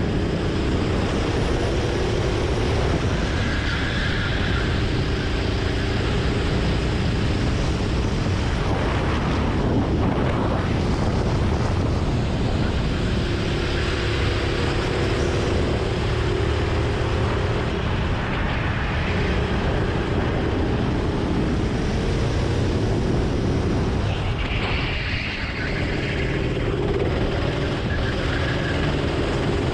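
Go-kart engine running hard as the kart laps, its note rising and falling with throttle and speed over a heavy low rumble. The level drops briefly about 25 seconds in as the kart slows for a tight hairpin.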